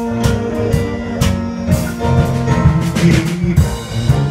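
Live band playing with drum kit and guitars. A long note is held for roughly the first two and a half seconds over a steady drum beat and bass line.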